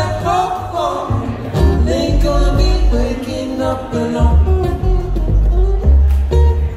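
Live acoustic band music: two acoustic guitars strumming over a plucked upright bass, with a male voice singing.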